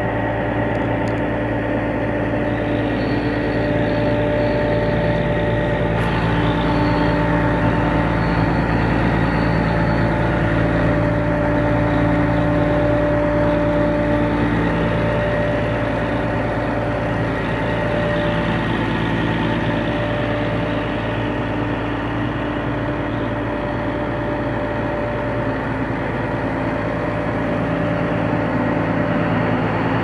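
A Vögele Super 2500 asphalt paver's Deutz six-cylinder diesel engine running steadily at idle, a constant drone with several steady humming tones over it.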